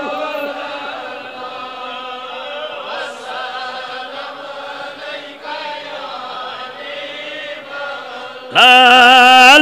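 Devotional chanting of a durood on the Prophet, a long drawn-out wavering melodic line held at a moderate level. About a second before the end, a man's chanting voice comes back much louder through the microphone.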